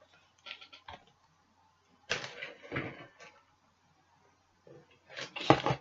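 A cardboard box and its packaging being opened and handled: a few light clicks and rustles, then a longer scraping, rustling stretch about two seconds in, and a louder rustle near the end.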